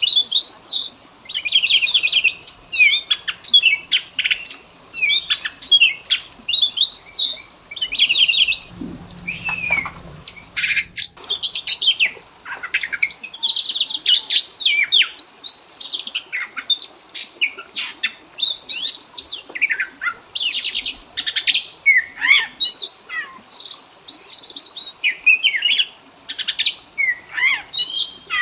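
Oriental magpie-robin (kacer) song: a dense, varied run of quick chirps, whistled notes and rapid trills with hardly a pause, the kind of full 'isian' song used to stimulate a captive kacer to sing.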